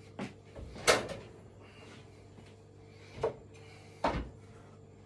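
Gas oven door and metal pie tin clunking as the pies are put into the oven: four sharp knocks, the loudest about a second in.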